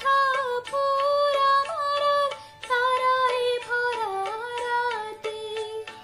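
A young woman singing a Bengali song solo in long held, ornamented notes, two phrases with a short breath about halfway, over a steady accompanying drone tone.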